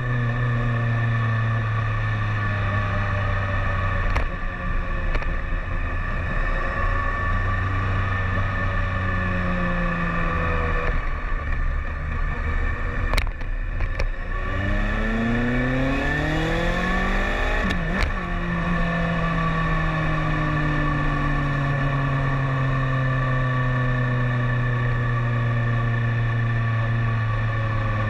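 BMW K1300S inline-four engine heard on board while riding, its pitch sinking slowly as the bike runs on. About halfway it revs up quickly, breaks off with a sharp click as it shifts up, then settles into steady running with the pitch easing down again.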